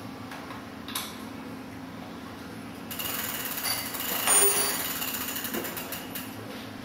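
Rear wheel with an e-bike hub motor spun by hand, whirring freely with faint ticking; it starts about three seconds in, is loudest a second later, then eases off. A small click about a second in.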